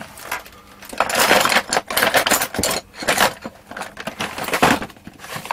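Someone rummaging through small hard objects, with rapid, irregular clattering and rattling as bits are pushed about and knock together, while searching for a roll of insulation tape.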